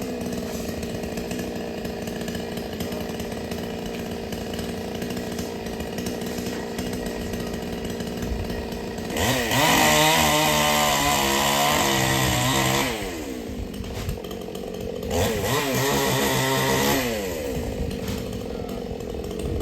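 Two-stroke chainsaw idling, then revved up to full throttle twice: once for about three and a half seconds, then again for about two seconds, dropping back to idle each time.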